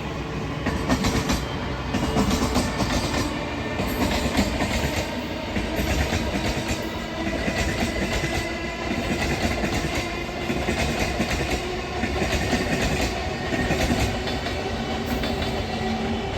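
MEMU electric multiple unit train accelerating: a steady hum and whine from the traction motors over the running noise, with wheels clacking over rail joints at irregular intervals.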